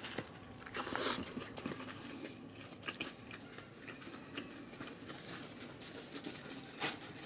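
A person biting into a crisp fried taco shell and chewing, with a loud crunch about a second in, scattered smaller crunches, and a sharp crackle near the end.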